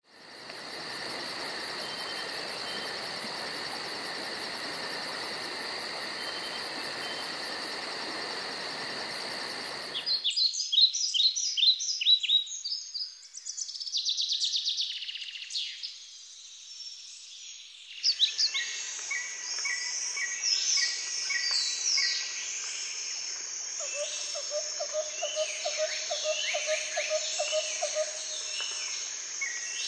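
A steady insect chorus with several fixed high tones for about the first ten seconds, then an abrupt change to birds chirping and calling with many short falling notes, a brief buzzing trill, and later repeated short notes over a low rapid trill.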